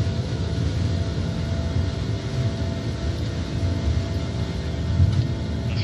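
Steady low rumble of the An-124 Ruslan's four D-18T turbofans and the airflow, heard inside the flight deck as the aircraft climbs away at takeoff power, with a few steady engine tones running through it.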